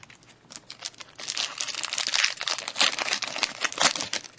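Foil wrapper of a 2010-11 SP Authentic hockey card pack crinkling as it is torn open by hand, in a dense run of crackles from about a second in until near the end.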